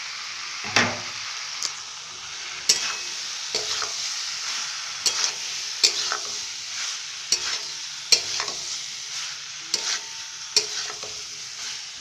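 Metal spatula stirring soya chunks and boiled potato pieces through frying masala in a metal wok, over a steady sizzle of hot oil. The spatula knocks and scrapes against the pan irregularly, about once a second.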